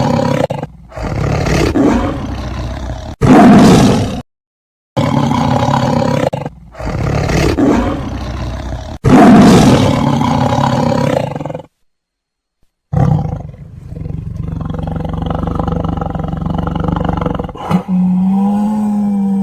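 Big cats, tigers and lions, growling and roaring in a string of separate recordings cut together with brief silent gaps. The two loudest roars come about three and nine seconds in. The last third is a lower, steadier growl.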